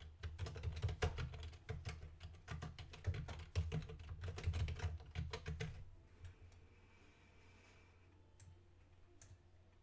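Computer keyboard typing rapidly for about six seconds, then stopping; two single clicks follow near the end.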